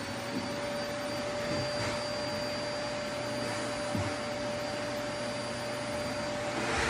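Vacuum cleaner running at full speed: a steady motor whine over the rush of air, with one soft knock about four seconds in.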